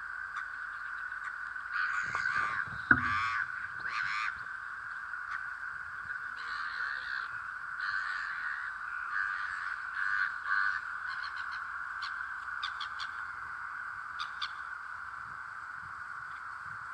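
Birds calling with harsh, crow-like caws in several short bouts over a steady hiss.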